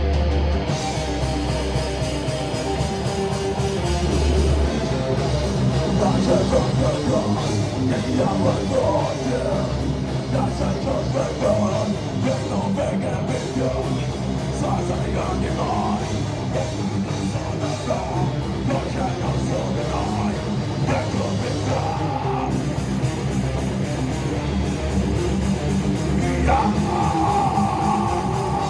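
Metal band playing a song live, with electric guitars to the fore.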